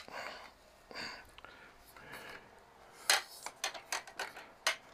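Handling noise from a phone camera being moved and set on its mount: rubbing and scuffing, then a quick run of sharp clicks and knocks in the last two seconds.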